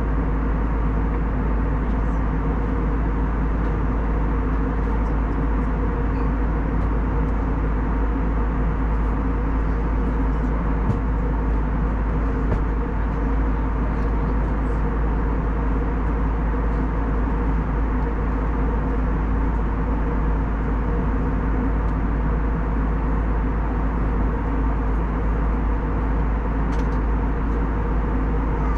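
Steady cabin drone of an Airbus A321neo in flight at cruising altitude: engine noise and rushing airflow heard from inside the cabin, with a steady hum running through it.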